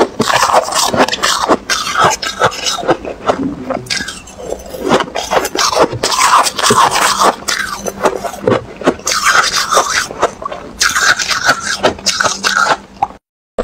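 Close-miked crunching and crackling of crushed ice being chewed, with a metal spoon scraping and scooping in a silicone bowl. It breaks off suddenly just before the end.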